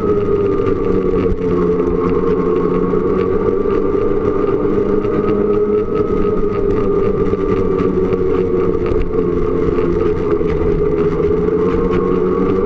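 Snowmobile engine running at a steady cruising speed, its pitch dipping slightly early on and easing back up, with no sharp revs or stops.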